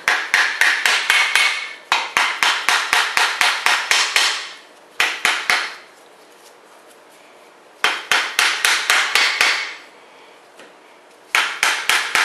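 Rapid light taps of an orange plastic-headed mallet on the main bearing caps of a Chrysler 440 block, seating the caps down over their studs. The taps come several a second in short runs, with brief pauses between runs.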